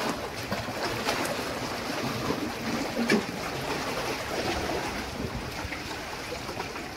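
Steady wash of sea water against rocks, mixed with wind on the microphone, with a few faint clicks.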